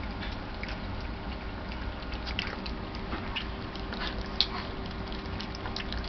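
Corgi puppies eating milk-soaked dry kibble: scattered small chewing and biting clicks, one sharper click about four seconds in, over a faint steady hum.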